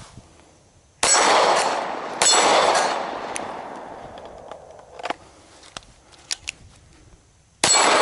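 Three shots from a Glock-pattern pistol at a steel target: two about a second apart near the start and one near the end. Each is followed by the high ring of the struck steel plate and a long echo, with a few light clicks in between.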